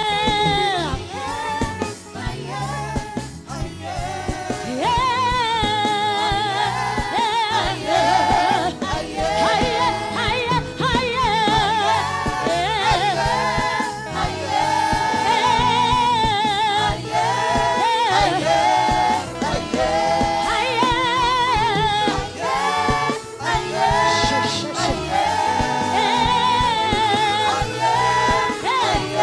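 Live gospel praise music: voices singing a Swahili praise song over a band with a steady beat.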